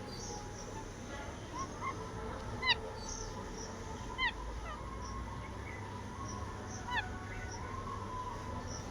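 A parrot giving short, harsh calls, three times, each a quick falling note, with faint short chirps of other birds in the background.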